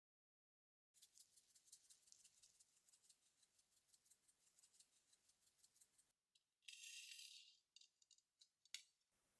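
Faint light ticking at about five ticks a second from a kitchen utensil handling food, then a short scrape and a few sharp clicks near the end.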